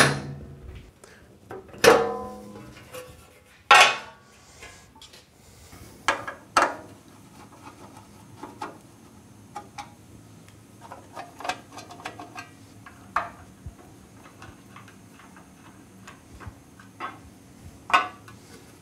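Metal clanks and clicks from a sheet-metal cover on a planer thicknesser being unscrewed and handled. There is a sharp knock at the start and a louder clang with a short ring about two seconds in. Lighter knocks and screwdriver clicks follow at irregular intervals.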